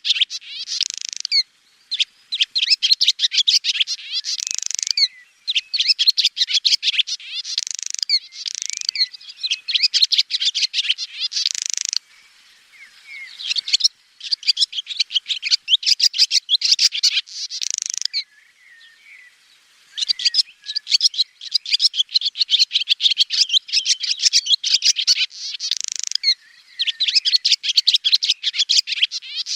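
Swallows twittering: rapid chattering strings of high chirps and trills in bouts of a few seconds, with short pauses between bouts.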